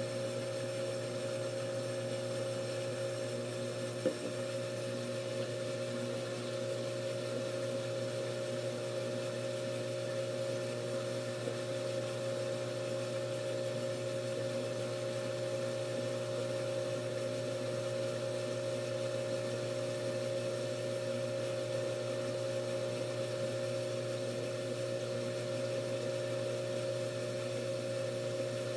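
Steady hum of a small electric motor holding a few fixed pitches, with one faint click about four seconds in.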